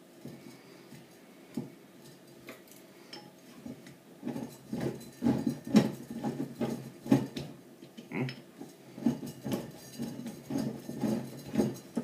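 Victorinox pocket-knife blade working at a wine bottle's cork, with metal-on-glass clinks and scrapes. A few light clicks come first, then from about four seconds in a quick, irregular run of knocks and scrapes.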